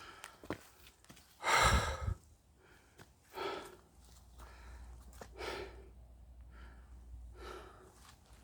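A hiker's heavy breathing while climbing uphill: four loud breaths about two seconds apart, the first the loudest.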